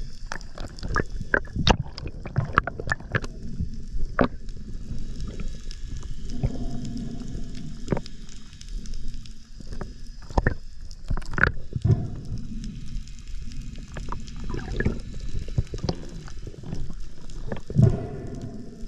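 Underwater sound picked up by a diving camera: a low, steady water rush with irregular sharp clicks and knocks scattered through it.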